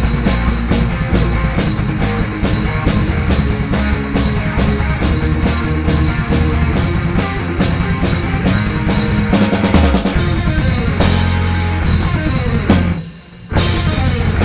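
Rock band playing live: electric guitar over a drum kit keeping an even beat. The full band comes in at the start, and about a second and a half before the end it stops for a moment and then crashes back in.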